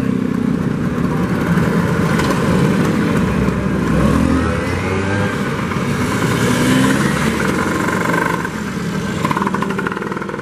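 Several Vespa scooters riding past close by one after another, their small engines revving and shifting pitch as each passes. The sound eases a little near the end.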